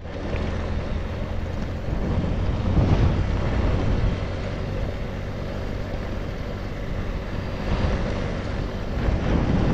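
Motor vehicle engine running steadily while travelling, with wind buffeting the microphone.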